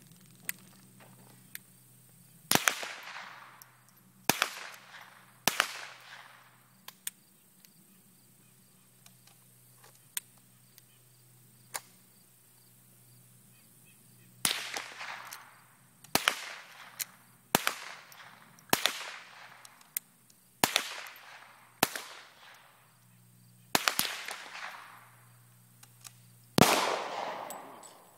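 Single shots from a .40 S&W handgun, each a sharp crack followed by a ringing echo: three about two seconds apart, then after a pause of about eight seconds a steadier string of eight more, one every second or two. Fainter cracks from other guns on the range fall between them.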